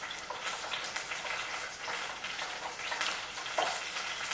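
Hot oil sizzling and crackling in a frying pan, a steady hiss dotted with small pops.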